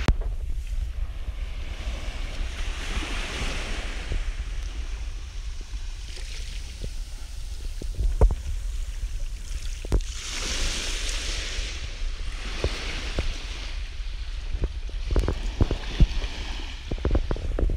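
Small waves washing onto a pebble and sand shore, the hiss swelling and fading with each wave. Wind rumbles on the microphone, and a few sharp knocks come in the second half.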